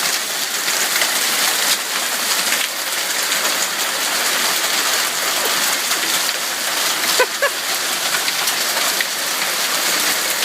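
Hailstorm: hail and rain pelting down on surfaces in a dense, steady clatter of countless small impacts.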